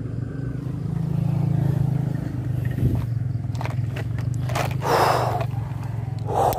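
A steady low motor hum, with a short knock about three seconds in and brief rustling or scraping noises about four and a half seconds in and again near the end.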